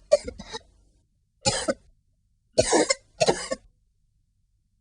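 A person coughing in separate bouts: two short coughs at the start, a single cough about a second and a half in, then a double cough around three seconds in.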